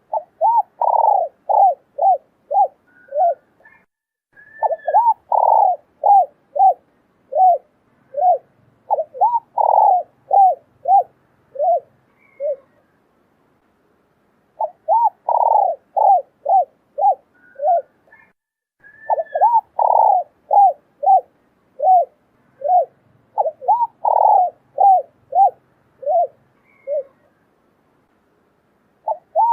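Spotted doves cooing: phrases of quick, hollow coo notes, one or two longer notes followed by a run of shorter ones, repeated over and over in two long series with a brief pause between them.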